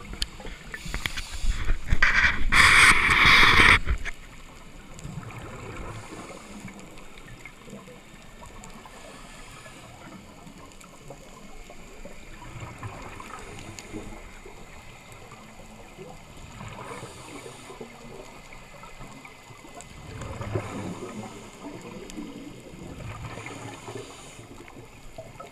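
Scuba divers' exhaled regulator bubbles heard underwater through the camera housing. There is a loud burst of bubbles about two seconds in, then softer bursts every few seconds over a muffled underwater hiss.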